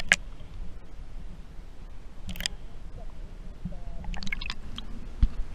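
Underwater noise heard through a submerged camera: a steady low water rumble with scattered sharp clicks and crackles, a cluster of them about four seconds in, and a low thump near the end.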